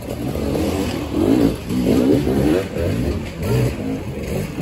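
Enduro dirt bike engine revving up and down in short blips, loudest about one to two and a half seconds in.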